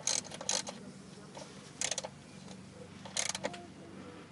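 Hand ratchet with a 14 mm socket clicking in short bursts, four of them spread through the few seconds, as it is worked back and forth to tighten an oil pan drain plug.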